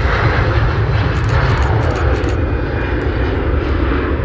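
Airliner's engines running loud and steady, a deep rumble under a wide roar.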